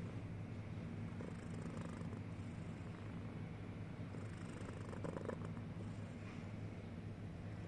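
Domestic cat purring in a steady low rumble as it dozes, with a faint hiss of breath swelling about every three seconds.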